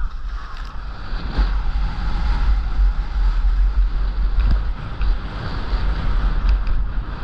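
Wind buffeting the microphone in a heavy, uneven rumble, with the hiss and scrape of skis turning on groomed snow swelling and fading every second or so.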